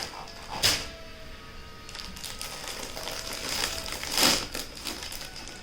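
Crinkly packaging and saree fabric rustling as a saree is handled and unpacked, with two louder swishes, about a second in and about four seconds in, over faint crackling.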